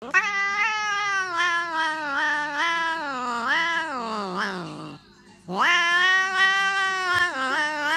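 Cat yowling in two long, drawn-out calls. The first lasts about five seconds and swoops up and down in pitch. After a half-second break, a second, steadier call follows.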